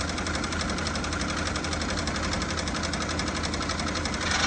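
Scroll saw running, its blade reciprocating rapidly with a fast, even chatter over a steady motor hum; the sound gets louder and brighter about four seconds in.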